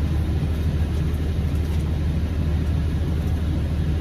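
Semi-truck's diesel engine idling steadily, a constant low hum heard from inside the cab.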